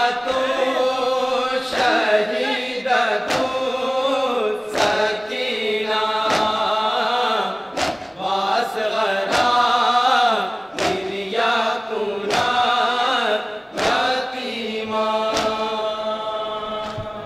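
A group of men chanting a noha (Urdu lament) in unison, with a sharp chest-beat (matam) about every second and a half keeping the rhythm.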